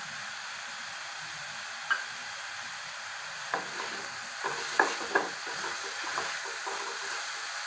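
Chopped vegetables sizzling in oil in a steel pan, stirred with a wooden spatula. A steady sizzle runs under a few sharp scrapes and knocks of the spatula against the pan, most of them around the middle.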